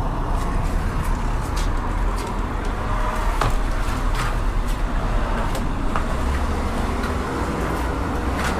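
A van driving at low speed: a steady low engine and road rumble, with occasional light clicks.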